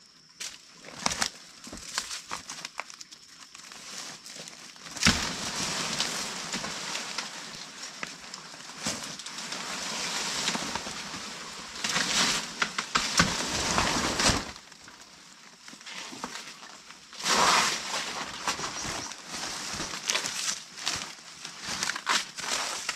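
Crackling, crinkling rustle of dry material being handled, full of small clicks. It is heaviest through the middle, with another short burst a few seconds before the end.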